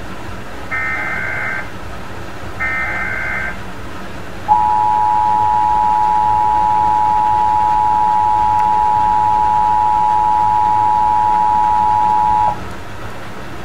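Emergency Alert System tones for a Required Monthly Test: two one-second SAME header data bursts about a second apart, then the EAS two-tone attention signal, held steady and louder for about eight seconds before cutting off sharply.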